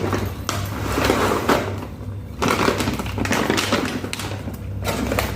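A cat eating, with dense irregular crunching and clicking over a steady low hum.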